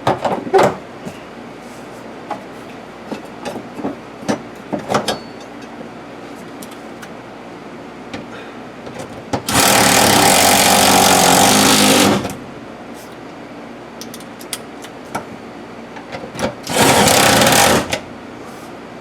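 Handheld power driver running in two bursts, a longer one of nearly three seconds about halfway in and a shorter one near the end, driving screws into the dash ductwork. Before them, light clicks and knocks of plastic trim parts being handled and fitted.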